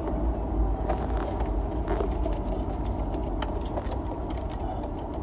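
Steady low rumble of a vehicle, heard from inside its cab, with a few faint small clicks.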